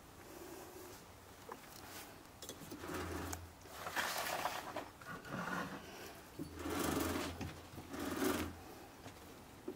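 European badger foraging with its snout down in a log: five short bouts of sniffing and snuffling, starting about three seconds in, two of them with a low hum underneath.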